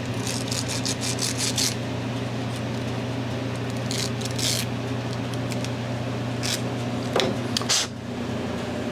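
Fast scratchy scrubbing strokes on a small carburetor pilot jet: a quick run of about half a dozen rubs near the start, then a few shorter bursts later on. A steady low hum runs underneath.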